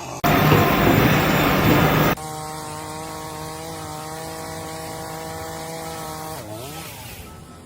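A loud rushing noise for about two seconds that cuts off abruptly, followed by a steady machine hum that dips and rises in pitch near the end.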